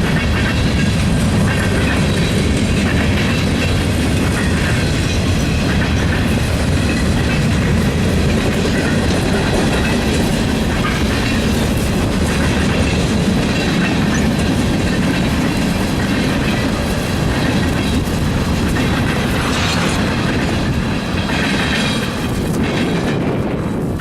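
Freight train cars rolling past: a loud, steady rumble with the clatter of wheels over the rail joints and a faint high squeal from the wheels.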